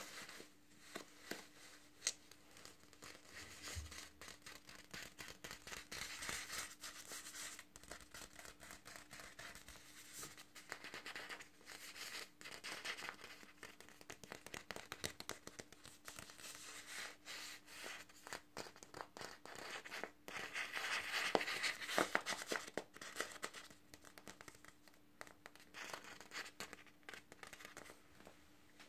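Fingers and nails squeezing and scratching a skein of Red Heart Love Metallic yarn and its paper label: a dense run of soft crinkling and scratching, loudest a little past two-thirds of the way through.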